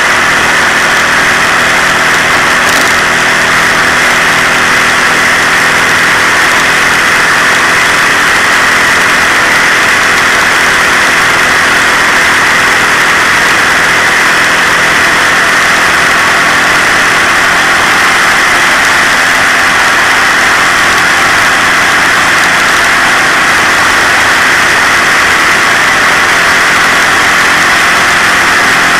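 Moped engine running steadily while riding, loud and unchanging.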